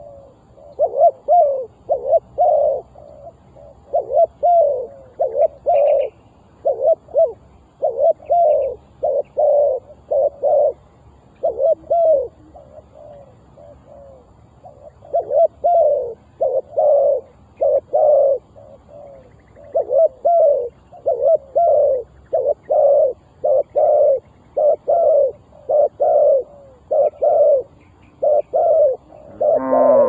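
Spotted dove cooing: repeated phrases of several low coos, pausing for a few seconds midway, then calling steadily again.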